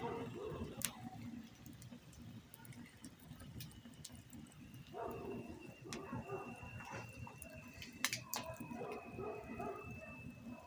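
Campfire burning with irregular sharp crackles and pops, the loudest a few pops about eight seconds in, over a low continuous rumble; a thin steady high whistle runs through the second half, and short irregular mid-pitched sounds from another source come and go.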